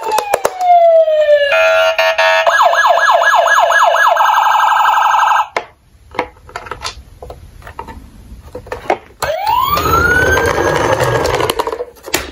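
Tonka toy police truck's electronic siren playing from its small speaker: a falling wail, then a fast yelp warble for about four seconds that cuts off suddenly. A few clicks follow, then a rising wail that holds until near the end.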